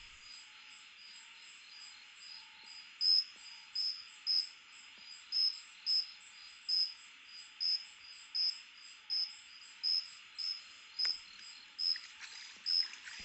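Night insect chorus of crickets: a steady high, shrill hiss, with one nearby insect chirping loudly and regularly about twice a second from about three seconds in.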